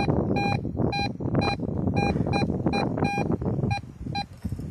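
Metal detector (a '4080' model) beeping its target tone as the search coil is swept over buried metal: about a dozen short, same-pitched beeps, two to three a second, stopping shortly before the end, over a rough low noise.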